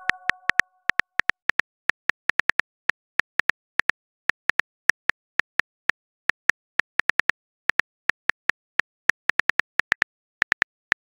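Phone keyboard clicks, one per typed letter, tapping out a message at an uneven pace of about five a second. The last ring of a chime fades out in the first second.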